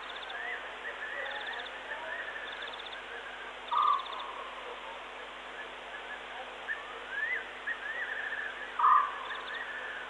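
Night chorus of the African bush: a short, low call repeated about every five seconds, over a steady background of chirps and brief rapid trills.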